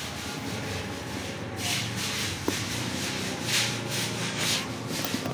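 Zipper of a hard-shell children's trolley bag being pulled open in a series of short rasping strokes, beginning about one and a half seconds in.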